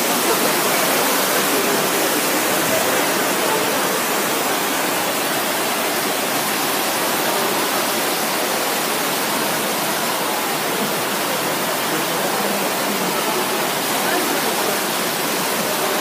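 Water falling in sheets from the ledges of a decorative fountain into its basin, a steady rushing splash.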